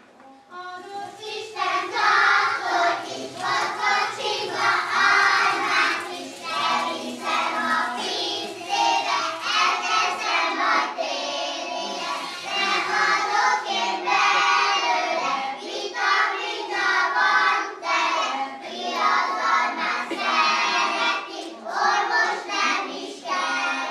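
Young children's voices singing a song, starting about a second in and stopping just before the end.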